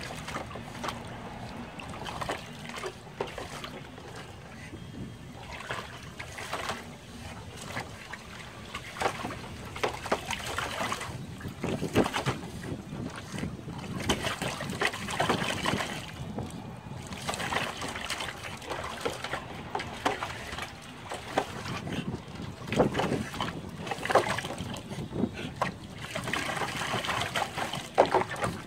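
A pug pawing and digging at water in a plastic tub: irregular splashing and sloshing that comes and goes in flurries.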